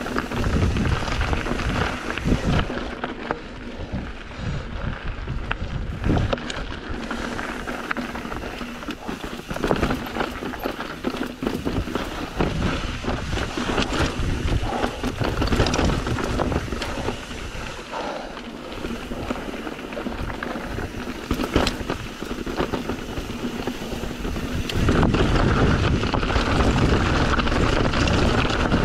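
Mountain bike riding down a rocky dirt trail: wind rushing over the microphone and tyres rolling over dirt and rock, with scattered sharp knocks and rattles as the bike hits bumps. The wind grows louder about 25 seconds in.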